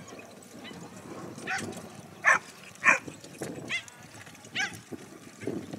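A small dog barking in short, high yaps, about six times, the two loudest close together in the middle. Horse hooves and carriage wheels rumble underneath.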